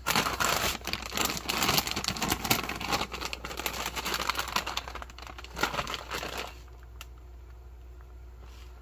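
Plastic heating pad oven bag crinkling and rustling as it is handled and folded, stopping about six and a half seconds in.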